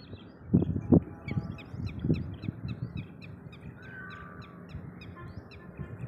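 Several birds calling with short, sharp chirps in quick succession, over wind buffeting the microphone in gusts.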